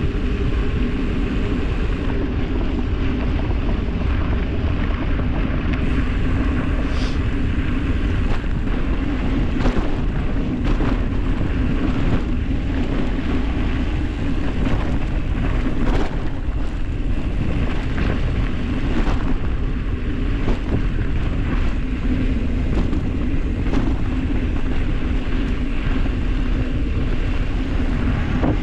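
Wind buffeting the microphone over the steady rumble of tyres rolling fast down a dirt road, with sharp clicks and knocks scattered through.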